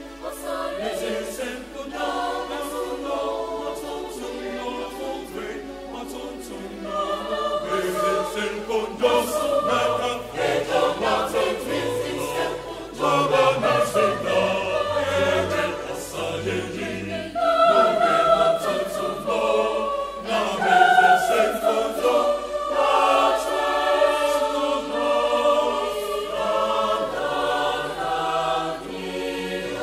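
Mixed choir of women and men singing in multi-part harmony, holding sustained chords that swell louder in stages through the passage.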